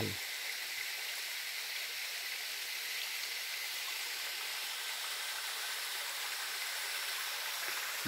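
Small waterfall cascading down a rocky face: a steady, even rush of falling water.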